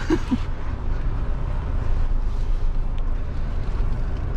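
Mahindra Thar's turbo-diesel engine and drivetrain rumbling steadily, heard from inside the cabin as the 4x4 drives slowly over a dirt off-road track.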